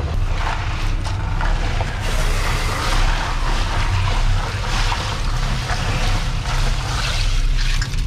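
Crushed ice rattling and crunching as hands shift yellowfin tuna around in a boat's fish box, irregular and scratchy, over the steady low hum of the boat's outboard engines running.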